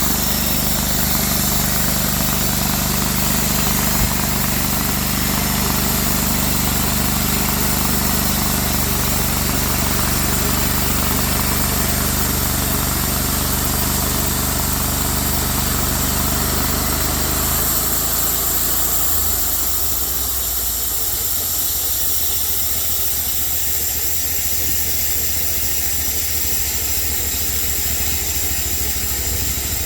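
Band sawmill's engine running steadily with a constant hiss. About 18 seconds in, the low engine note drops away and the sound shifts and gets slightly quieter.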